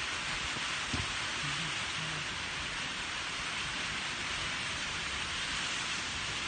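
A steady, even hiss like falling rain.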